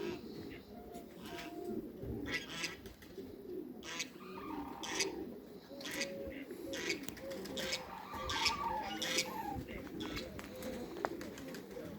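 Farmyard poultry calling: a continuous low cooing murmur with short, sharp calls scattered through it.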